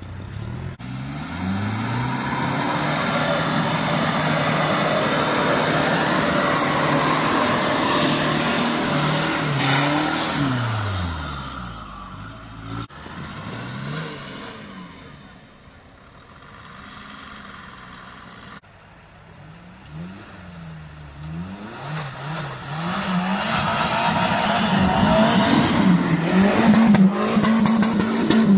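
Off-road 4x4 engines revving up and down again and again as the trucks force through mud and snow with wheels spinning. A quieter stretch comes in the middle, and the revs run loud and high near the end.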